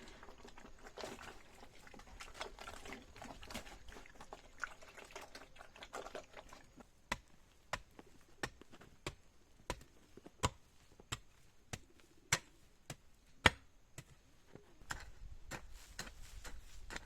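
Repeated sharp knocks, about one and a half a second, starting about seven seconds in after a stretch of mixed soft clatter.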